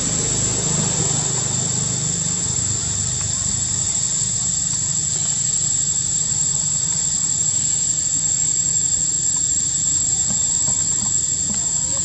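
Steady high-pitched insect drone of a tropical forest, unbroken, over a low steady rumble.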